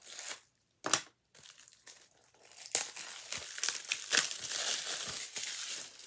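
Plastic shrink wrap being torn and crinkled off a 4K Blu-ray case: two short rips near the start, then about three seconds of continuous crackly crinkling with sharp snaps from about three seconds in.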